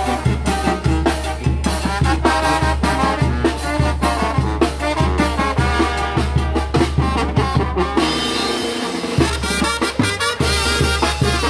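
Brass band music: a banda playing a chilena, with brass carrying the melody over a tuba bass and drums in a steady beat. About eight seconds in, the low beat thins out briefly, then comes back.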